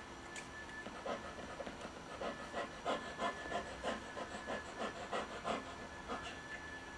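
A dog panting in quick, even breaths, about three a second.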